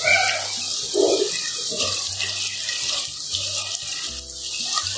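Raw mutton pieces sizzling in hot oil with onions and garlic paste in a clay pot: a steady, even hiss.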